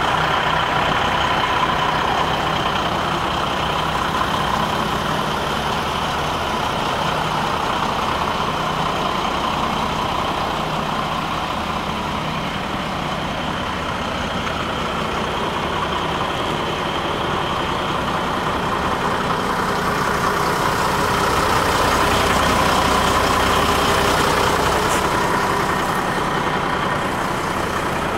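Renault M150 Midliner fire truck's diesel engine idling steadily, growing a little louder for a few seconds near the end.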